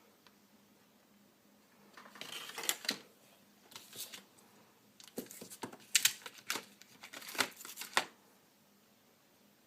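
Packaging being handled and torn open: crinkling, tearing bursts with sharp crackles, in three spells about two seconds in, around four seconds and from five to eight seconds.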